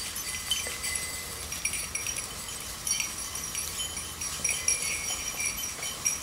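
Small bell jingling on and off, light metallic ringing that comes and goes as a hound moves through the undergrowth.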